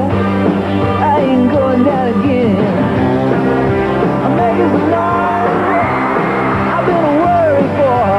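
Rock song playing: a singer's voice gliding up and down over a steady band accompaniment.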